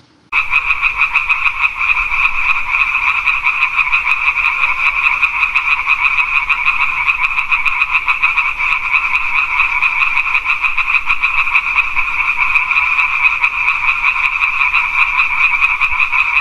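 Frogs calling: a loud, continuous run of fast pulsed croaks held at a steady high pitch, starting a moment in.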